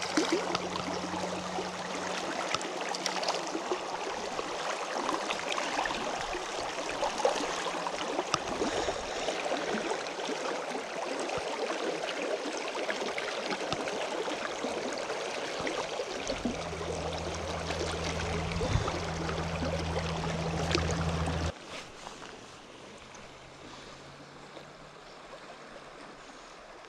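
Shallow creek water running and rushing close by, a steady wash of noise; it drops sharply in level about four-fifths of the way through.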